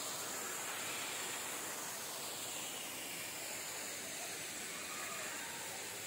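Steady rush of a waterfall and stream, an even noise with a high hiss over it that stays level throughout.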